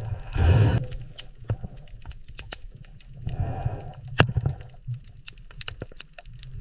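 Irregular sharp underwater clicks at a cleaning station where small shrimp are cleaning a giant grouper's teeth. Two louder rushing bursts come about half a second in and a little after three seconds.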